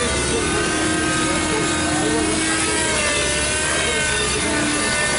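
Nitro-powered Compass 3D Plus RC helicopter flying hard 3D: the glow engine and rotor run steadily, with a whine whose pitch wavers slightly as the load changes.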